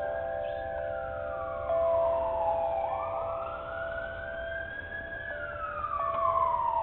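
An emergency vehicle siren wailing: the pitch glides slowly down, back up and down again. Under it runs a steady droning tone and a low rumble.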